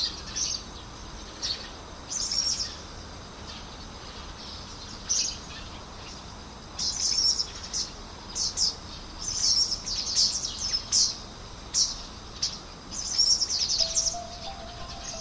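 Small birds chirping in short, high calls, scattered at first and busier from about halfway through. Soft music notes come in near the end.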